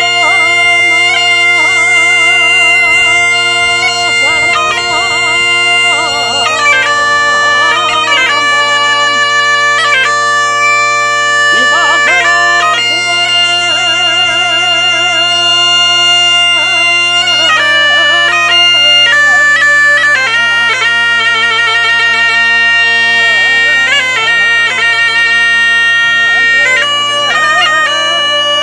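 Asturian bagpipe (gaita) playing a melody with quick trills and ornaments over a steady, unbroken drone.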